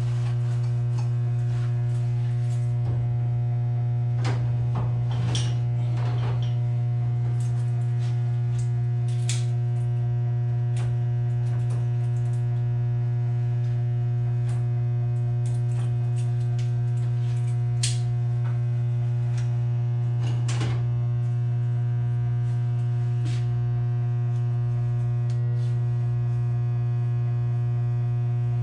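Steady low electrical hum from energised switchgear in a live 480-volt electrical room, one unchanging drone with overtones. Scattered light clicks and taps come from wires and a hand tool being worked in the open breaker panel.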